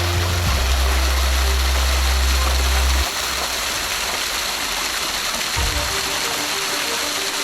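Background music with slow held bass notes that change every few seconds, over the steady rush of a mountain waterfall or stream.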